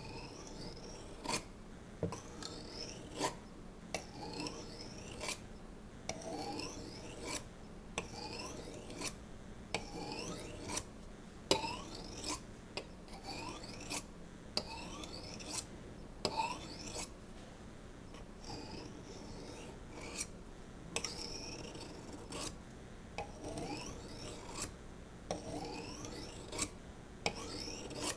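Steel knife blade, made from an old saw blade, being sharpened by hand: repeated scraping strokes about one to two a second, each a short rising scrape ending in a click.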